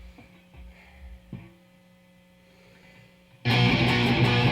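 A faint steady hum with a few small clicks. About three and a half seconds in, a punk rock song kicks in loudly on distorted electric guitar.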